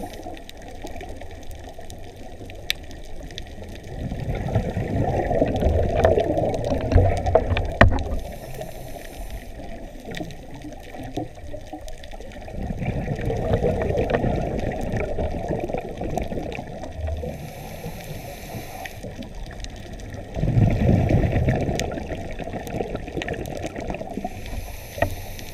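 Scuba diver breathing underwater through a regulator: a long low rush of exhaled bubbles, then a short high hiss of the next inhalation, three breaths in all. Faint scattered clicks and crackles sound underneath.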